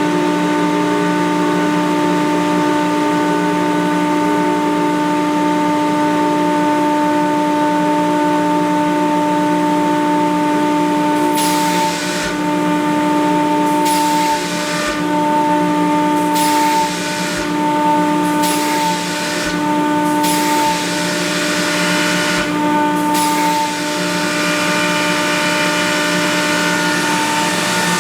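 Kaeser CSD 125 rotary screw air compressor running with a steady hum. From a little under halfway through it cycles between load and unload, with about eight short hisses of air venting. This back-and-forth loading and unloading at the cut-out pressure is, the owner says, caused by back pressure from an undersized hose.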